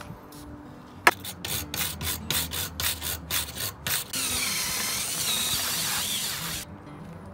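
A hand wire brush scrubs back and forth over rusty steel plane parts, about four strokes a second, to strip the rust. About four seconds in, a cordless drill with a wire brush attachment whirs against the metal and stops suddenly after about two and a half seconds.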